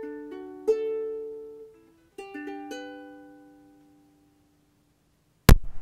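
Music on a plucked string instrument, a few notes and chords that ring out and fade away, then a short silence broken by one sharp click near the end.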